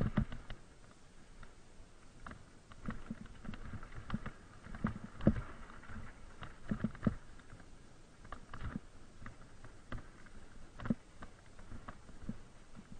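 Mountain bike rattling and knocking over bumps and roots on a steep, leaf-covered trail descent: irregular jolts heard through the mounted camera, over a faint steady rolling hiss. The loudest thump comes about five seconds in.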